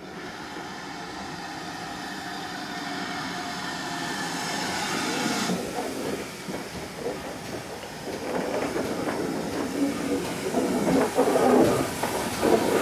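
GWR 5600-class 0-6-2 tank steam locomotive No. 5643 drawing into a station with its carriages, growing steadily louder as it nears. From about halfway through, its wheels and running gear clatter and knock irregularly.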